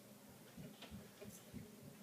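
Near silence with a few faint soft knocks and a light click, the small sounds of hands handling things at a work surface.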